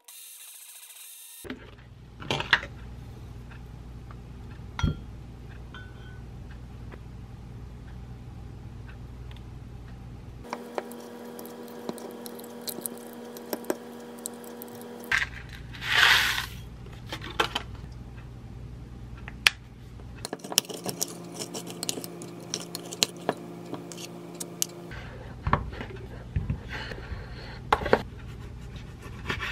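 Kitchen food-prep handling sounds in several short takes: scattered clicks, taps and scrapes of utensils, glassware and a wooden cutting board, including a wooden spoon stirring yogurt in a glass bowl. A brief hiss comes about halfway through.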